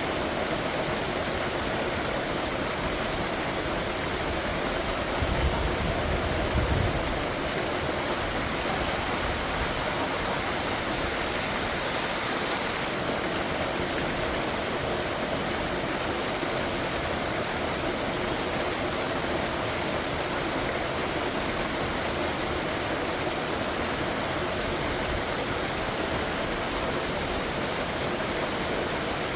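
Waterfall water falling and splashing in a steady, full rush. A brief low rumble comes about five seconds in and lasts under two seconds.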